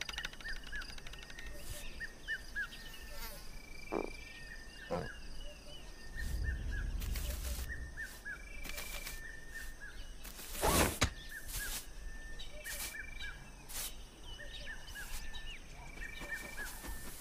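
Grassland ambience: small birds chirping in short runs of quick notes over a steady insect-like trill, with a few scattered clicks and one louder broad burst about eleven seconds in.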